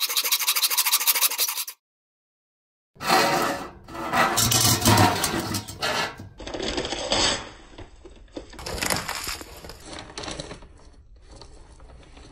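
Reciprocating saw cutting through a steel pipe, a fast, even chatter of blade strokes that stops suddenly under two seconds in. After a brief silence, irregular metal scraping and knocking follow as the cut pipe is handled against a galvanized steel bucket.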